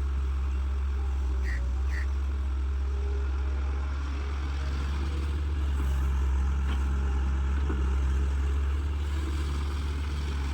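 Caterpillar excavator's diesel engine running steadily with a deep low rumble, swelling slightly in the second half. There are two short high chirps about a second and a half in.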